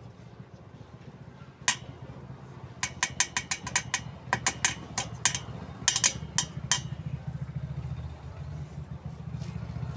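A steady low hum with a quick, uneven run of about fifteen sharp clicks from about two to seven seconds in.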